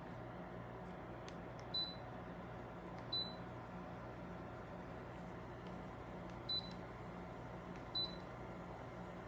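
Four short, high electronic beeps, spaced unevenly over about six seconds, over a steady low electrical hum.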